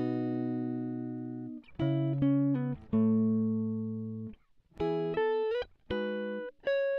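Background music: plucked-string notes and chords, each struck sharply and ringing as it fades, with two longer held chords in the first half.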